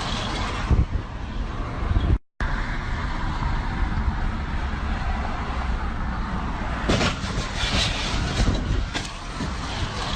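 Steady road and traffic noise with a heavy low rumble. It breaks off in a short dropout about two seconds in, then goes on, with a few louder crackles later.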